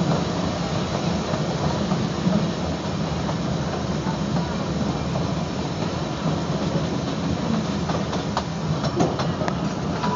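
Narrow-gauge park train running behind a 4-4-0 steam locomotive: a steady rumble of the wheels on the rails, with a run of sharp clicks and clacks in the last couple of seconds.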